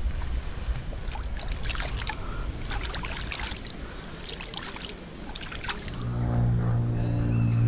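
Small clicks and rustles of close handling over light wind, then about six seconds in a motor starts a steady low hum that grows louder.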